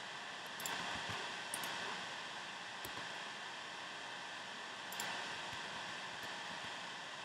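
Steady hiss of a recording microphone, with about four soft clicks from operating the computer, spaced irregularly through the first five seconds.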